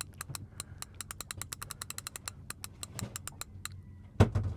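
Fishing reel's ratchet clicking in an uneven run as a fish takes line off the reel, a bite the angler suspects is a conger eel; the clicks stop shortly before the end. One loud thump near the end.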